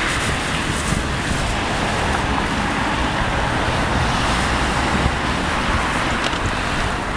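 Steady rushing rolling noise of a Croydon Tramlink tram running past on the track.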